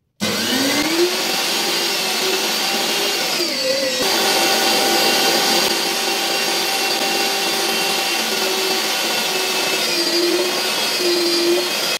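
Electric meat grinder starting up, its motor rising in pitch, then running steadily as it minces beef into coarse mince, the pitch dipping briefly a couple of times as it takes the meat.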